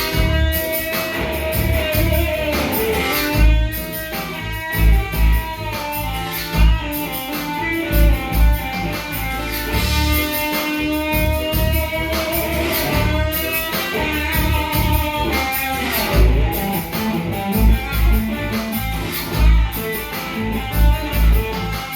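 A band playing a bluesy, guitar-led piece, with sustained guitar notes over loud low thuds that come every second or few seconds.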